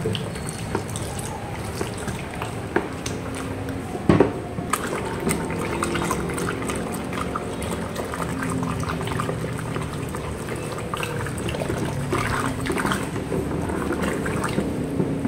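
Thick, milky liquid being stirred in a plastic bucket with a plastic stick: continuous sloshing and squelching with small clicks of the stick against the bucket, and one sharp knock about four seconds in. The silicone thickener just added is making the mixture thicken as it is stirred.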